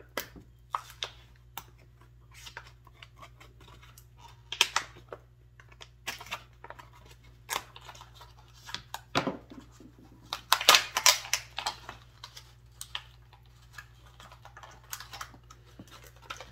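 An LED headlamp's packaging being opened and the lamp handled by hand: irregular clicks, crinkles and rattles, busiest and loudest about ten to eleven seconds in.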